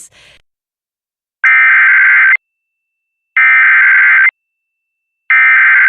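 Emergency Alert System SAME header: three bursts of rapid, warbling digital data tones, each just under a second long and about a second apart, the coded start of a severe thunderstorm warning broadcast.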